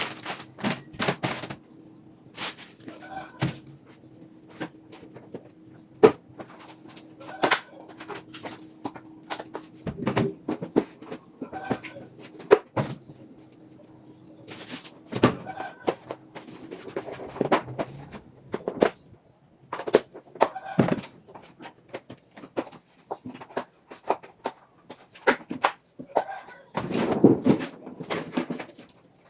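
Repeated knocks and clatter of household items being handled, with chickens clucking in the background. A low steady hum stops about halfway through.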